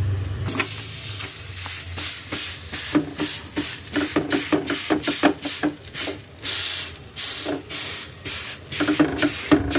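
Rice-flour rotti dough hissing on a hot non-stick tawa, starting about half a second in as it meets the pan, while a hand rubs and presses over the sheet laid on top of it in quick repeated strokes.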